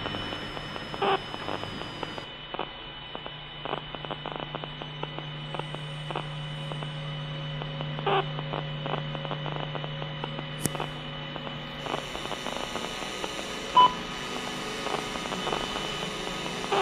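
Electronic sound-art soundtrack of radio-like hum and static, with a steady low hum, a thin high steady tone and scattered crackling clicks, and one short electronic beep near the end.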